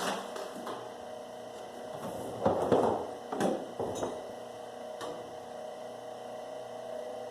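Wire stripper running with a steady hum while copper wire is fed through it, with several knocks and rattles from the wire being handled, the loudest about two and a half to three seconds in.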